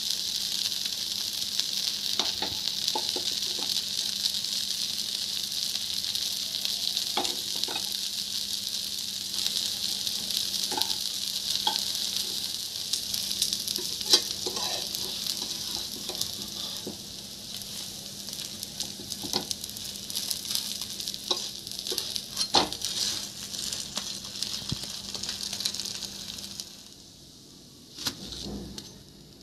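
Dosa batter and oil sizzling on a hot flat griddle (tawa), a steady hiss with scattered clicks and scrapes of the spatula on the pan. The sizzle stops near the end.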